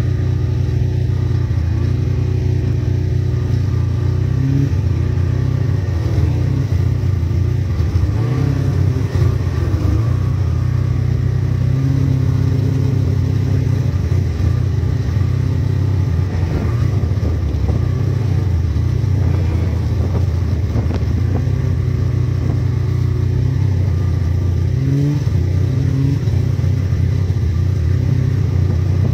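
Snowmobile engines running steadily at travelling speed, the engine note rising and falling now and then with the throttle.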